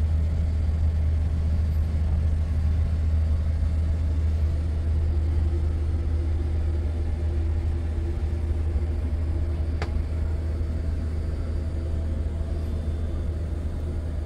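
Steady low rumble and hum of airliner cabin noise aboard a Boeing 787-9, with one short click about ten seconds in.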